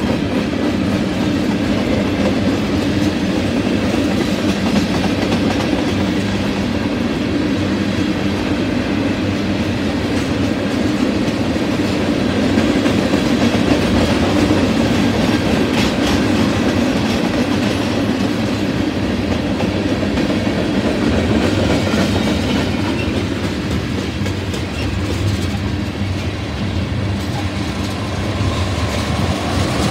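Freight train of tank cars rolling past at close range: a steady rumble of steel wheels on rail with repeated wheel clicks over the joints.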